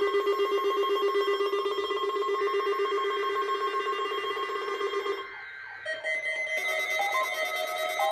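Weather alert radio sounding its warbling alarm, a fast trill on a steady pitch set off by a weather service test alert; it cuts off about five seconds in. After a short lull, a tune with changing notes begins near the end.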